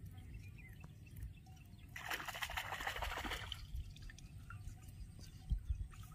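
Shallow paddy-field water splashing and trickling for about a second and a half, starting about two seconds in, over a low steady rumble, with a dull thump near the end.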